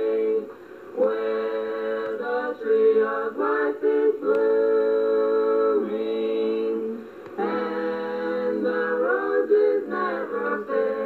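A family vocal group of mixed men's and women's voices singing unaccompanied in harmony, holding long notes, with short gaps between phrases about half a second in and about seven seconds in. It is heard from a cassette copy, with the top end cut off.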